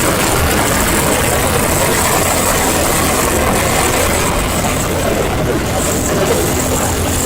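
Heavy truck engine running steadily with road and traffic noise; no horn sounds.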